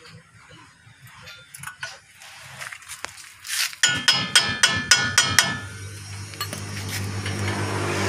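Metal tools clicking and clinking against the disc brake caliper and pads of a Toyota Hilux during brake reassembly, with a quick run of about eight ringing metallic taps about four seconds in. A low steady hum rises near the end.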